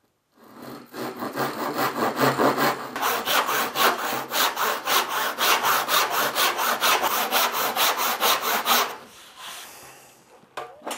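Western handsaw crosscutting a pine board by hand, in quick even strokes of about four to five a second that stop about nine seconds in. The cut is taken nearly all the way through the board.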